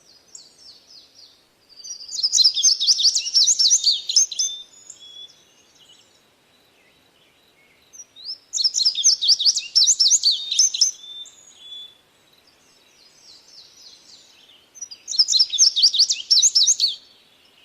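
A bird singing: three loud phrases, each a rapid run of short high notes lasting two to three seconds, spaced about six seconds apart, with softer chirps between them.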